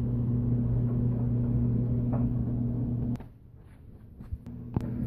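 A steady low mechanical hum that cuts off suddenly about three seconds in, followed by a few light clicks and knocks.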